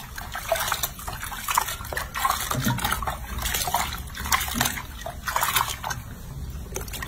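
Water splashing and sloshing in a bathroom sink basin as a hand scoops and rubs water over a baby monkey, in a run of irregular small splashes.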